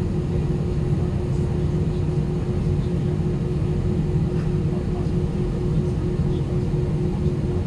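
Airbus A319 cabin noise: a steady jet-engine drone and low rumble with a constant hum, holding level throughout.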